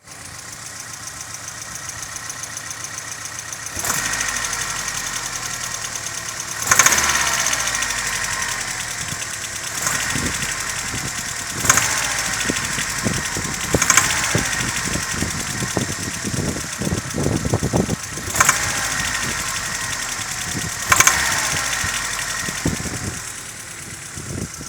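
Opel C18NZ 1.8-litre four-cylinder petrol engine running with a knock and being revved briefly several times, the pitch falling back after each blip. It has low compression in cylinders 1 and 2 from a head gasket blown between them.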